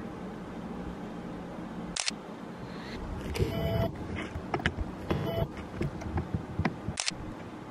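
Two sharp clicks about five seconds apart, with two short mechanical buzzes and a scatter of lighter ticks between them, over a steady low hum.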